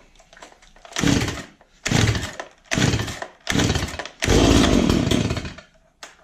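Cold start of a Stihl MS170 two-stroke chainsaw on full choke: four quick pulls of the recoil starter about a second apart, then a longer, louder burst as the engine briefly fires and dies.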